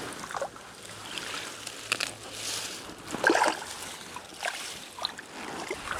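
Legs wading through pond water, sloshing, with a splash every second or so as each step is taken.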